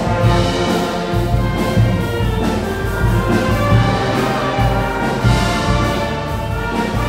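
Brass band playing a medley of pop songs, with trumpets and trombones carrying the tune over a low bass line on a regular beat.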